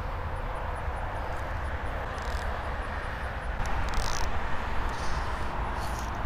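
Steady outdoor background rumble, with a few short rasping bursts as fly line is pulled off an Orvis fly reel by hand, the clearest about four seconds in.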